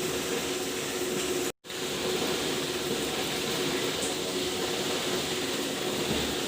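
Steady hiss of falling rain. It cuts out completely for an instant about one and a half seconds in.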